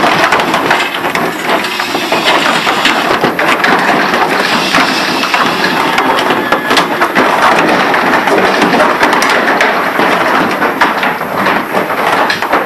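Calves' hooves clattering on the slatted loading ramp of a livestock truck as they are driven aboard: a dense, continuous run of knocks and scrapes.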